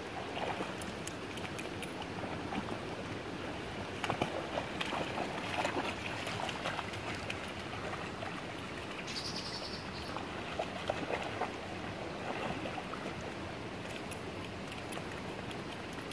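A puppy splashing and sloshing through shallow water as it wades and paws, giving irregular splashes over a steady watery hiss.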